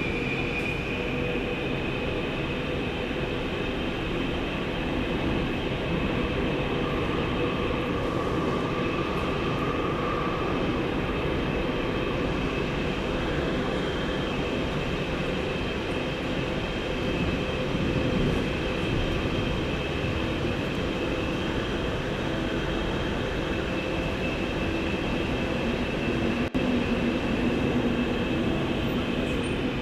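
Daegu Metro Line 1 subway train, a car with updated software, running along the line as heard from inside the passenger car: a steady rumble of wheels on track with a high, steady whine from the traction motors.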